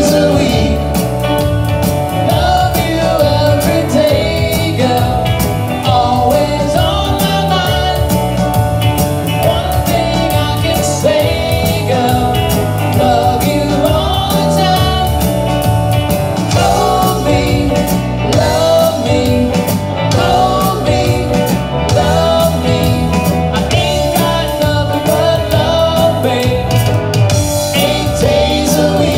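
Live rock band playing through a PA: electric guitars and an electric bass, with a man singing lead.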